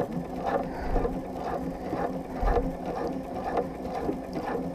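Domestic sewing machine stitching slowly with a ruler foot, free-motion quilting a straight line: a steady motor hum with the stitches ticking evenly, about three a second.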